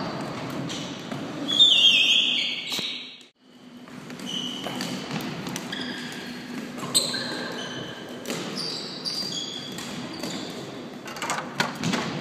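Sneakers squealing again and again on a sports-hall floor during fast floorball play, with scattered sharp clacks of sticks and ball. The loudest squeal comes early, and the sound drops out for a moment about three seconds in.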